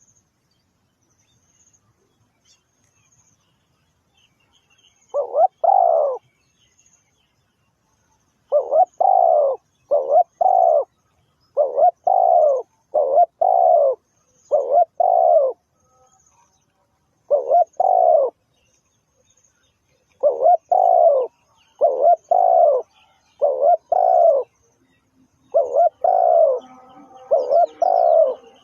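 Spotted dove cooing: after about five quiet seconds, short low coos come mostly in pairs, phrase after phrase with brief pauses between. Faint high chirps of small birds sound in the background.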